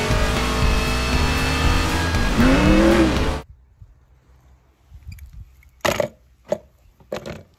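Race car engines from an animated stock-car racing scene, with music, cutting off suddenly about three and a half seconds in. Then several short splashes as a die-cast toy car is pushed into a plastic tub of water.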